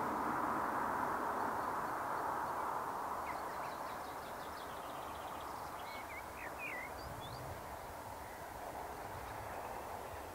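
Distant diesel train noise: a steady rushing hum fades over the first few seconds, then a low rumble comes in near the end as a diesel locomotive approaches. Birds chirp briefly in the middle.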